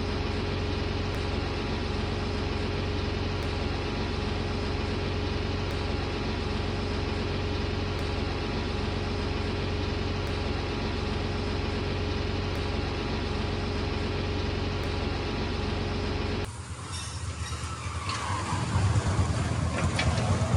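Tractor engine running at a steady speed. About sixteen seconds in it cuts to a different engine sound that grows louder.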